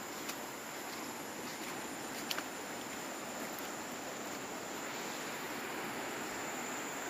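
Steady outdoor ambience: an even, high-pitched insect drone over a low wash of noise, with a couple of faint clicks.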